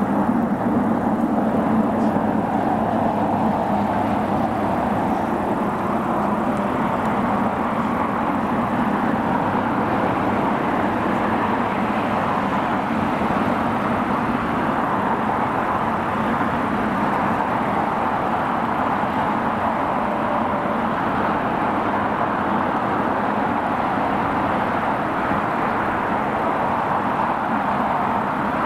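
A steady, even roar of engine noise with no sharp sounds in it.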